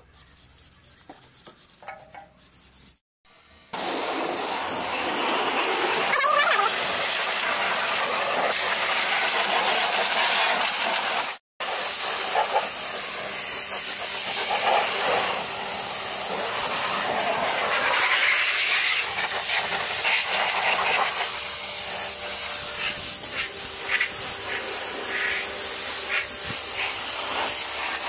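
Pressure washer jetting water onto a car's bodywork: a loud, steady hiss of spray that starts abruptly about four seconds in and cuts out once, briefly, about halfway through.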